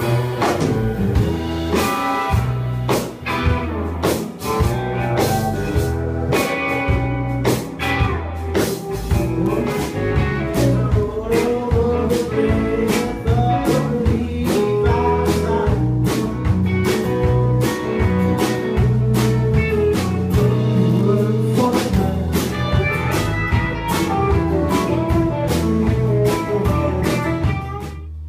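A live band playing: acoustic and electric guitars, a steel guitar and drums, with a singer.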